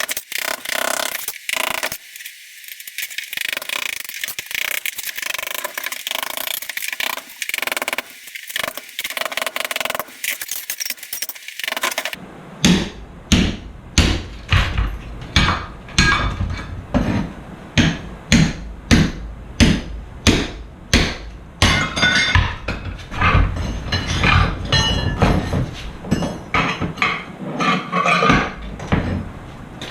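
Hammer breaking ceramic tile off a wall: light clinking and scraping of tile at first, then from about halfway a run of hard, evenly paced blows, roughly one and a half a second, giving way to more irregular knocks and clinks of broken tile near the end.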